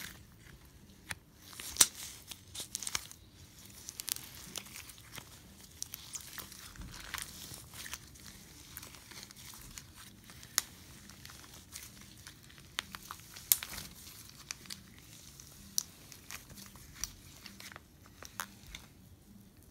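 Slime mixed with crumbled floral foam being squeezed and kneaded between the fingers: a soft crinkling broken by irregular crackles and sharp clicks, a few of them louder snaps.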